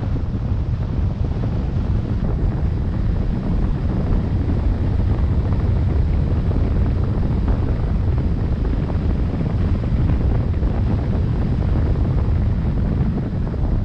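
Steady wind buffeting the microphone over a continuous low rumble, with no clear engine note or distinct events.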